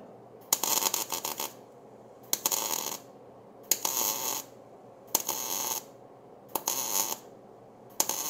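MIG welder laying a series of short welds on steel tubing: six bursts of arc crackle and hiss, each under a second long, coming about every second and a half.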